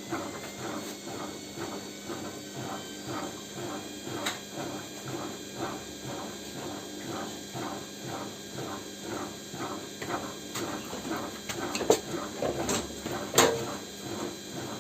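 Bosch washing machine's brushed motor spinning while its commutator is ground with an abrasive stone: an even scraping whir that pulses about three to four times a second. A few sharp clicks and knocks come near the end.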